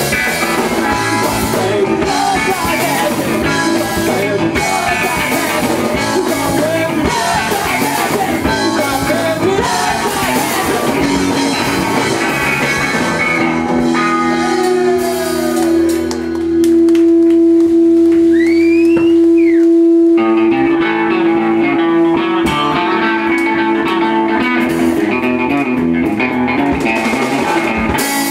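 Punk rock band playing live: electric guitar, drums and singing. Partway through, the band thins out to one held, sustained note for several seconds, then the full band comes back in.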